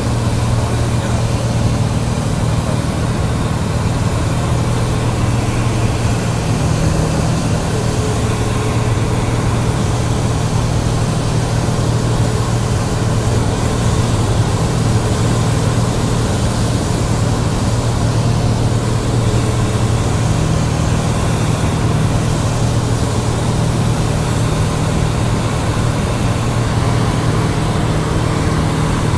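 Cessna 172's piston engine and propeller droning steadily in cruise, heard inside the cabin, with a constant low hum and the hiss of air over the airframe.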